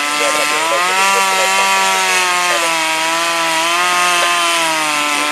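An engine running steadily at high speed, its pitch wavering slowly up and down.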